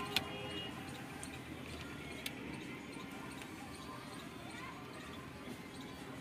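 A stiff electrical wire being handled and positioned, giving two sharp clicks near the start and a single click about two seconds in, over faint steady background noise.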